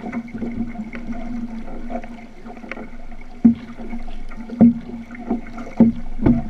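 Water splashing and rushing along the hull of a paddled outrigger canoe, over a steady low hum. In the second half come four or five sharp knocks, about a second apart.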